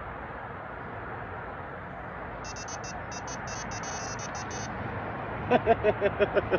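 An electronic alarm sounded as a wake-up call: a quick stutter of faint high-pitched bleeps, then about seven loud short beeps in a fast run near the end, over a steady hiss.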